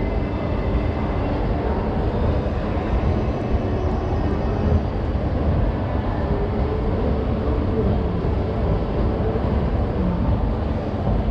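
Escalator running, heard from on its moving steps: a steady low mechanical rumble with the general noise of a shopping centre around it.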